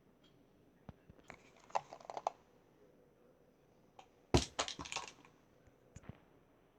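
Clicks and knocks of hard objects being handled: a short run of rattling taps, then a louder clatter of several sharp hits about four and a half seconds in, and a couple of lone clicks after.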